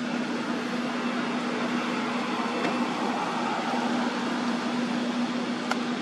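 Steady mechanical hum: one constant low tone over an even hiss, with a faint click near the end.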